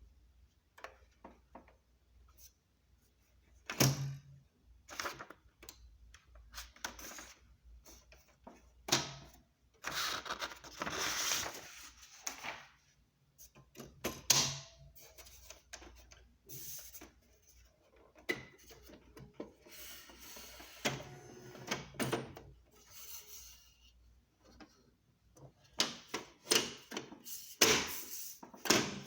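Panasonic Spell-minder R310 electronic typewriter at work: irregular printing clicks, with several louder thunks and a few longer mechanical runs of noise.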